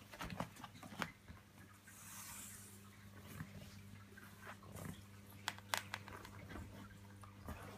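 A six-month-old baby crawling on a padded floor: his hands pat and tap the surface, with a few small grunts and breaths, over a steady low electrical hum. The sharpest taps come about a second in and twice a little past the middle.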